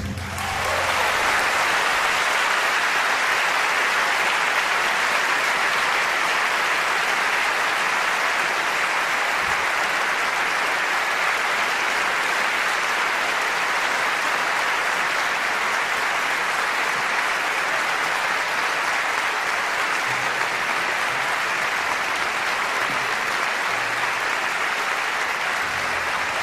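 A large concert audience applauding, a dense and steady clapping that begins as the orchestra's final chord cuts off.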